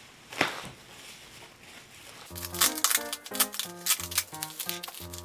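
Plastic bubble wrap crinkling as it is pulled off a box, with one sharp rustle about half a second in. Background music with a bass line and beat comes in just after two seconds and carries on.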